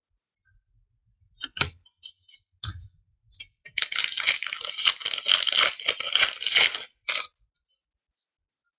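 A trading-card pack wrapper crinkling and tearing open for about three seconds, with two light knocks of cards set down on a table before it.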